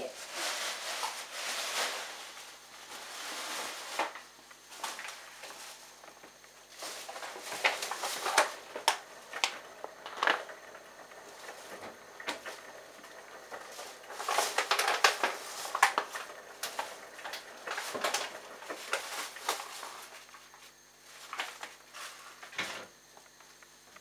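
Irregular clinks, knocks and clatter of dishes and utensils being handled, over a Bosch Logixx washing machine's drum turning wet laundry in its rinse, with soft swishes of water and a faint steady hum.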